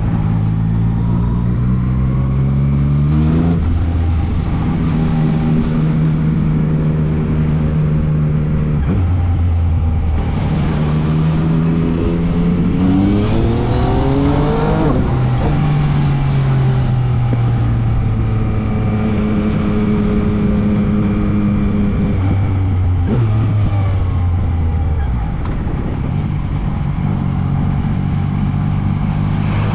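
Yamaha MT-09's three-cylinder engine under way. The revs climb, then step down at a gear change about three seconds in. It holds steady, then climbs again to a peak about halfway through, eases off, and settles to a steady cruise with another shift near two-thirds of the way.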